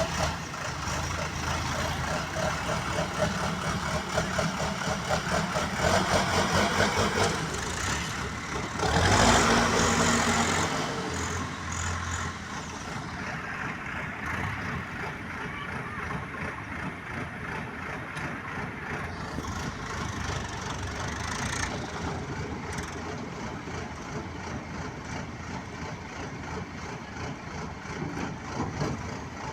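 BULL HD 76 backhoe loader's diesel engine running, surging louder for a couple of seconds about nine seconds in before settling back to a steady run.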